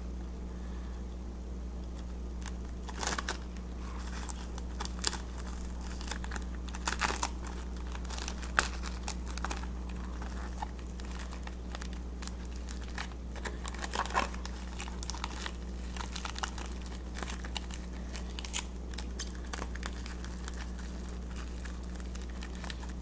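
A balled-up plastic bag crinkling and crackling in the hands as it is wrapped in sticky tape, with tape pulled from the roll; the crackles come irregularly, a few of them louder. A low steady hum runs underneath.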